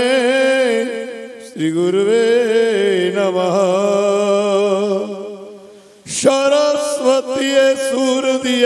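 A man chanting a devotional invocation alone into a microphone, in long drawn-out phrases with a wavering pitch. The chant breaks briefly about a second and a half in and again about six seconds in before the next phrase.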